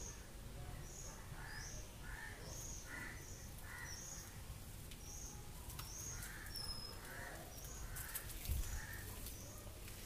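Faint bird calls: a short high chirp repeated about twice a second, with lower, harsher crow-like calls among them.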